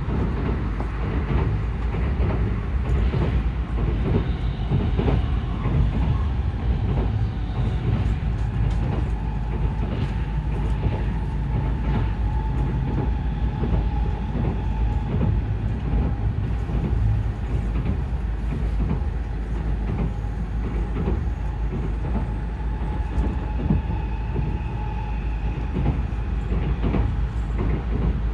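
Cabin running noise of an N700S Shinkansen train: a steady low rumble with frequent light clicks and knocks from the wheels and track. A thin, steady whine comes in after several seconds and fades out near the end.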